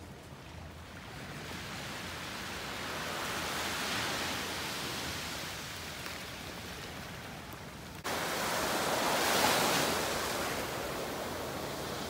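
Small waves washing up on a sandy shore, a steady hiss that swells and ebbs with each surge. It jumps suddenly louder about two-thirds of the way through.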